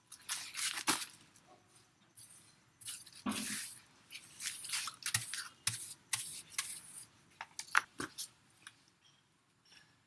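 Irregular rustling, scraping and a few sharp clicks of hands working potting soil and a pot while repotting a plant cutting.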